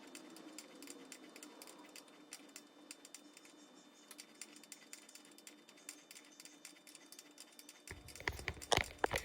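Faint, quick clicks and light taps of metal hand tools and small parts being handled during motorcycle disassembly. Louder knocks come in near the end.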